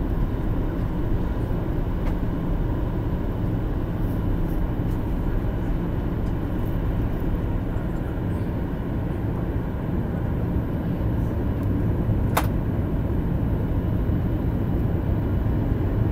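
Airliner cabin noise on approach: a steady low rumble of the jet engines and rushing air, heard inside the cabin. A single sharp click about twelve seconds in.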